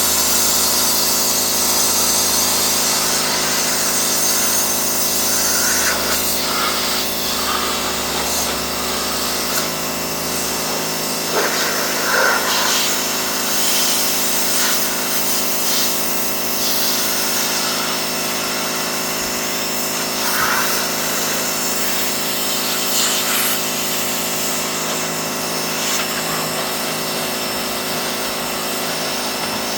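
Pressure washer running steadily: a machine's constant hum under the hiss of the high-pressure water spray. The deepest part of the hum drops away about a third of the way in.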